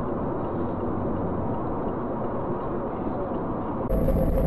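Steady road and engine noise inside a moving car's cabin. Near the end it cuts abruptly to a louder, deeper rumble of another car driving.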